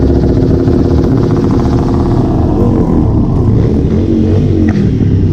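Motorcycle engines running at low road speed, the nearest one loud and steady, its engine note wavering and shifting from about halfway through.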